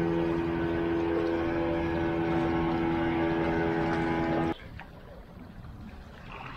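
Small motorboat's engine running at a steady pitch. It cuts off abruptly about four and a half seconds in, leaving only a quiet background.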